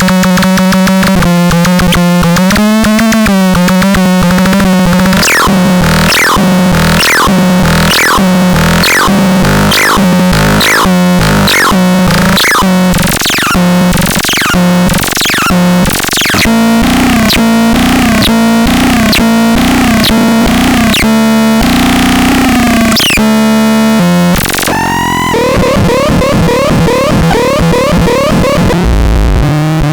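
Loud synthesizer sounds over a steady low drone. From about five seconds in, falling sweeps repeat roughly every two-thirds of a second; near the end the pattern changes to warbling tones.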